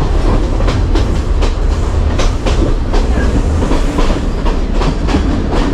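Passenger train carriage in motion, heard from inside with the windows open: a steady low rumble with irregular sharp clacks of the wheels over the rail joints.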